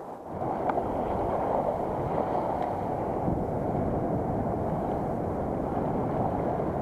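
Wind blowing across the microphone together with surf washing on the beach, a steady rushing noise that comes up suddenly just after the start and holds.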